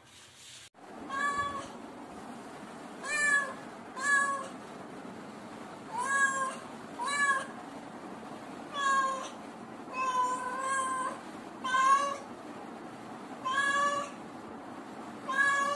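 A cat meowing again and again: about eleven short meows, each rising and falling, a second or two apart, two of them close together around the tenth second.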